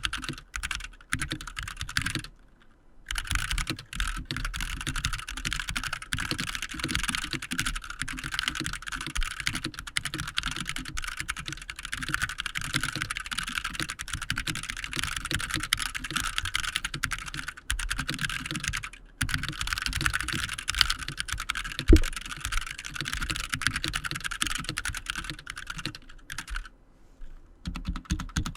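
Fast continuous typing on a Logitech Pro X 60 Lightspeed mechanical keyboard with GX Optical Tactile switches, a dense stream of key clicks with brief pauses, and one louder key strike about two-thirds of the way through.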